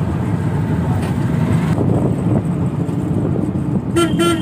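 Auto-rickshaw engine and road noise rumbling steadily, heard from inside the open cabin while riding. About four seconds in, a horn gives two short toots.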